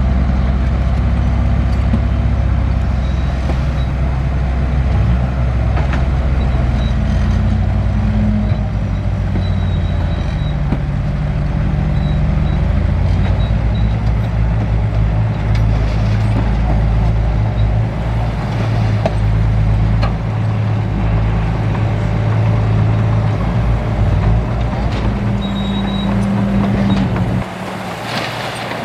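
Large diesel engine of heavy earthmoving machinery running under load, its pitch shifting up and down as the load changes; the engine note drops away about a second before the end.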